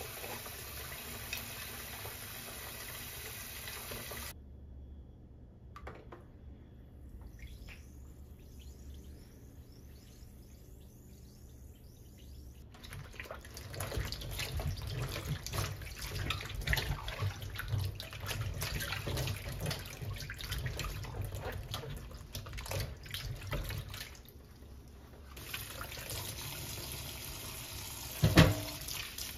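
Kitchen tap running into a plastic basin in a stainless-steel sink, then a quieter stretch of faint crackling. From about halfway in, hands swish and splash green onions in the basin of water, and near the end the tap runs again, with a knock against the sink.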